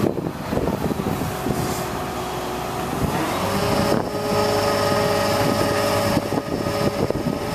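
Truck engine running to drive the Altec digger derrick's hydraulics as the boom and auger are moved. About three seconds in the pitch rises as the engine speeds up under load, then holds steady with a higher whine.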